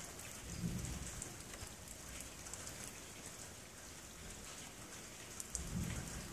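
Low rumble from the stormy sky ahead of a rainstorm, swelling twice, about a second in and again near the end, over a steady hiss with faint ticking.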